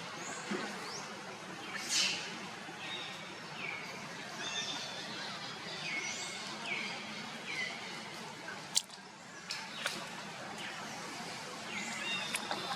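Repeated short, high chirping animal calls, sweeping in pitch, over a steady outdoor background, with one sharp click about two-thirds of the way through.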